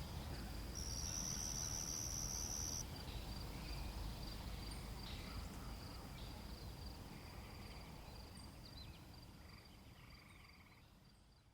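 Night insect chorus: crickets keep up a steady high trill, and a bush cricket (katydid) buzzes loudly for about two seconds near the start, over a low rumble. The whole chorus fades out toward the end.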